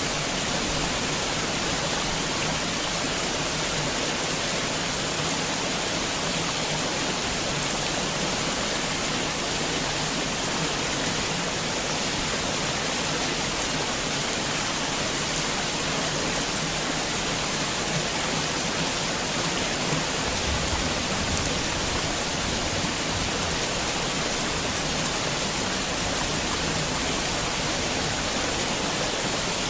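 Heavy rain falling steadily, an even dense hiss of drops with no thunder.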